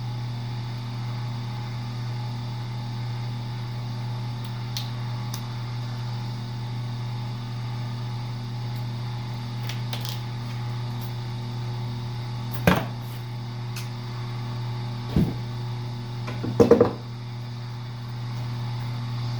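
Co-Z wire stripping machine running with a steady low motor hum as aluminum wire is fed through and stripped. A few short sharp knocks come in its second half, one near the end loudest.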